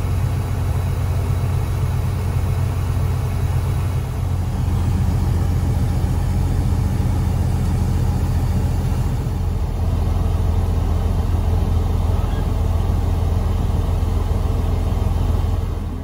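Steady low diesel-engine rumble heard from inside a truck cab, with a John Deere tractor and grain cart working close alongside.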